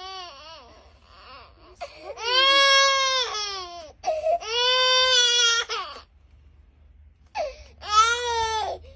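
Baby crying: a fading cry, then three long cries with short breaks between them, the last starting about seven and a half seconds in.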